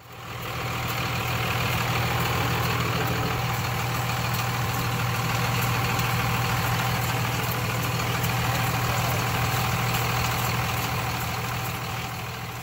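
Dodge truck engine idling steadily with a weird rattling noise. The rattle comes from a loose AC compressor pulley that is seizing up.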